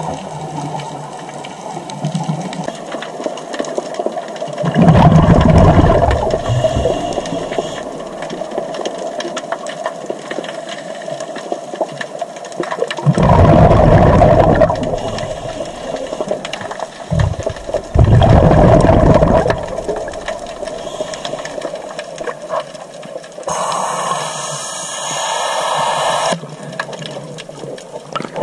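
Scuba regulator breathing heard underwater through a GoPro housing: three loud rushes of exhaled bubbles several seconds apart over a steady hiss, and a thinner, higher hiss near the end.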